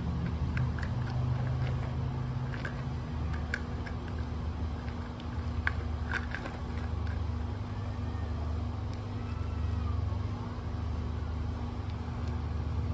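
Steady low mechanical rumble with a constant hum, like a nearby motor running, with scattered small clicks of pebbles and a plastic toy excavator knocking on concrete.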